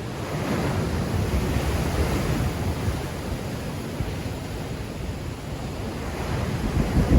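Black Sea waves breaking and washing ashore in a strong wind. A wave surges up about a second in, and wind buffets the microphone.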